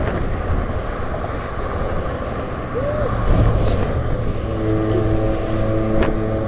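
Road traffic passing close by: a steady rush of car tyres and engines. About four and a half seconds in, a steady pitched engine hum from a heavier vehicle joins.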